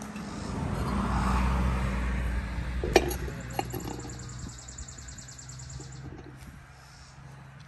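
A passing motor vehicle: a low engine and road rumble that swells over the first second or two, then fades away. A single sharp clink of a dish being handled comes about three seconds in.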